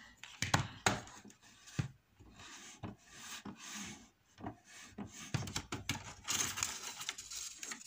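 Paper rubbing and scraping under an Epson XP-2100 print head as the clogged nozzles are wiped clean, mixed with light clicks and knocks from the plastic carriage being handled. The scratchy rubbing grows denser near the end.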